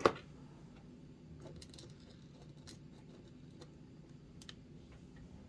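A sharp click right at the start, then faint, scattered ticks of small tools and tiny screws being handled while fitting retaining screws to hold the bearings in a 1/24-scale RC crawler axle.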